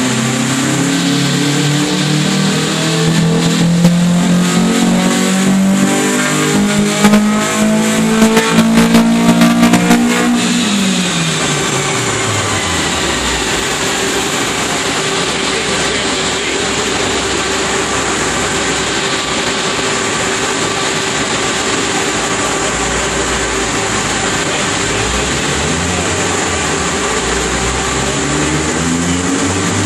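Nissan SR20DE 2.0-litre four-cylinder engine pulling at full throttle on a chassis dyno, its pitch climbing steadily for about ten seconds with sharp crackles near the top, then the throttle is lifted and the revs fall away. The dyno rollers then spin down with a steady hum and a slowly falling high whine, and the engine revs start rising again near the end.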